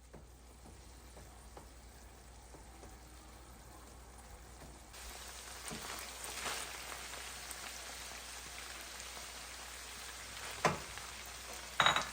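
Food sizzling in a frying pan with a steady crackle that grows louder about five seconds in. Two sharp clinks near the end, the second with a short ring, as of a utensil or lid striking the pan.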